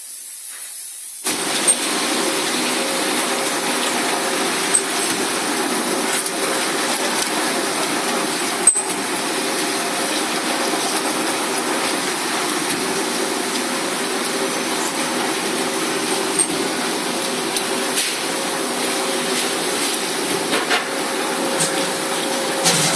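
DAMA DMD-1640 two-spindle CNC drilling machine running: a steady hum with a hiss over it that sets in about a second in, with scattered sharp clicks.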